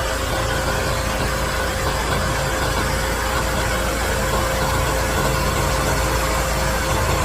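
LS tractor's diesel engine running steadily, with a thin steady whine held over the engine noise.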